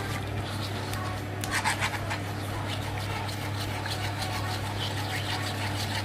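A utensil stirring a butter, milk and egg-yolk sauce in a pan, scraping and rubbing irregularly against the pan, over a steady low hum.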